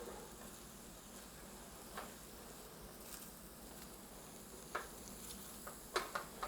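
Faint, steady sizzle of an egg, chicken and vegetable mixture frying in a hot pan, with a few light clicks.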